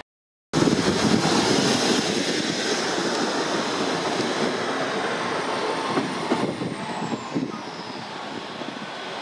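Hitachi Class 800 bi-mode train passing under its underfloor diesel engines: a loud, steady rumble of engines and wheels that starts abruptly about half a second in. A thin high whine glides down in pitch about six seconds in.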